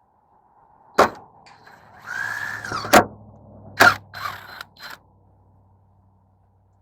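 Cordless drill running briefly, its pitch rising and then falling, amid sharp clicks and knocks of metal screws and brackets being handled.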